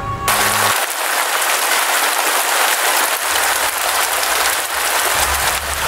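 Heavy rain falling on a wet street, a steady dense hiss of drops.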